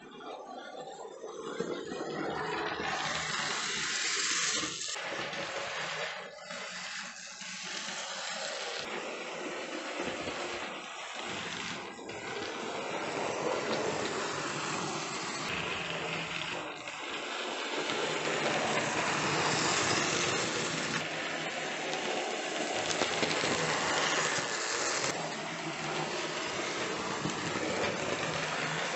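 Hornby OO gauge BR Standard 9F 2-10-0 model locomotive running round the layout, its electric motor and wheels on the track making a steady hiss-like whirr that swells and fades several times as it passes nearer and farther.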